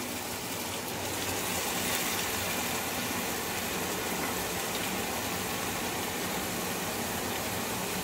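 Onion, tomato and green chilli masala frying in oil in a pan, a steady sizzle.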